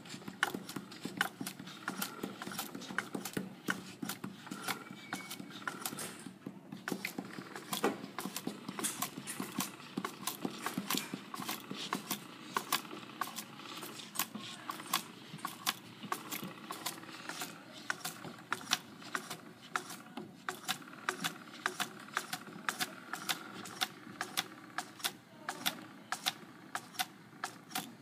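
Small wooden automaton's mechanism clicking and rattling as it runs, quick uneven clicks several times a second.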